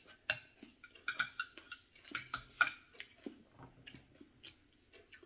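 Metal fork and spoon clinking and tapping against a ceramic bowl of mussels in their shells: a string of light, uneven clicks, some with a short ring.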